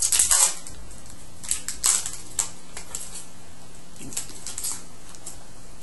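A foil 2013-14 SPx hockey card pack wrapper is opened and crinkled by hand in short crackling bursts. The loudest bursts come at the start and about two seconds in, with softer crinkles around four to five seconds.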